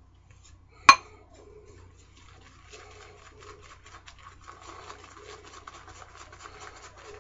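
Pure badger shaving brush whipping Van der Hagen Deluxe shave soap into lather in a bowl: a fast, scratchy swishing that starts about two and a half seconds in and runs on. A single sharp knock about a second in is the loudest sound.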